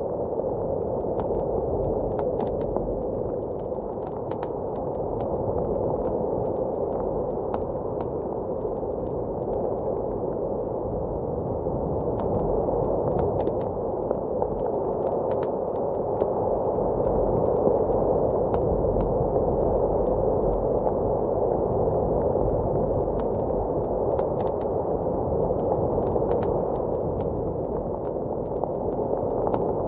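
Steady muffled rushing of blizzard wind that swells and eases slowly, with scattered sharp pops and crackles of a wood fire burning in a fireplace.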